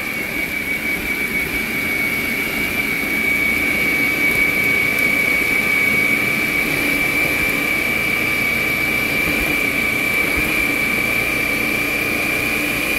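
Hamilton Beach food processor running continuously, its blade chopping shredded coconut fine, with a steady high-pitched motor whine over the churning of the coconut in the bowl.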